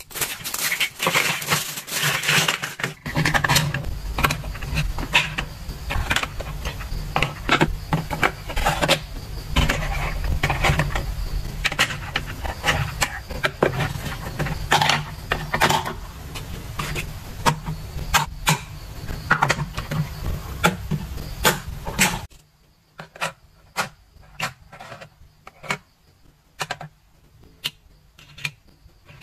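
Hard plastic toy kitchen pieces being handled: a plastic bag crinkling at first, then many small clicks and taps of plastic parts being set down and fitted. A low steady hum runs under the clicks through the middle and stops about three quarters of the way in, leaving only sparse clicks.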